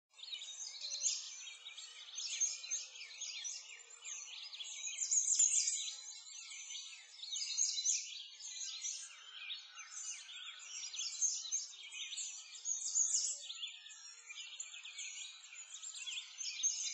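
A dense chorus of many small birds chirping and singing over one another, without a break.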